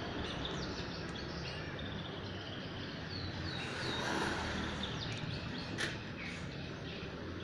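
Steady background noise with scattered short, high-pitched chirps that fall in pitch, a few at a time.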